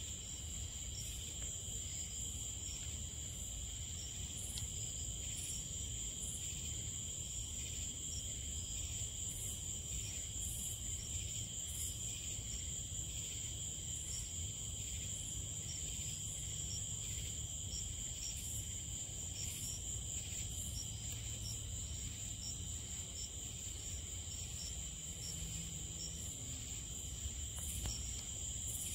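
Chorus of crickets and other night insects trilling steadily in high, even pulses, with a low rumble underneath.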